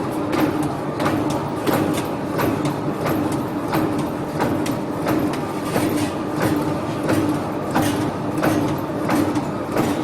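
Electric fresh-meat slicing machine running: a steady motor hum with a regular clack about every half second from its cutting mechanism.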